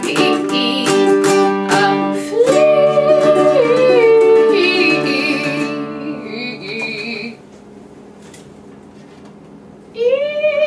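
Closing bars of a song with a woman singing over a strummed acoustic string instrument. A last long wavering sung note is held over a ringing chord that dies away about seven seconds in, leaving a few seconds of quiet room.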